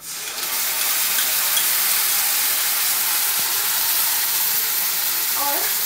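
Wet ground-spice paste poured into hot oil and browned onions in a kadhai, starting to sizzle all at once and then sizzling steadily and loudly.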